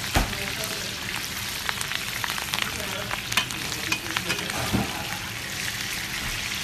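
Steak frying in a pan of melted butter with herbs, sizzling steadily with many small crackles. Two louder knocks sound, just after the start and near five seconds in.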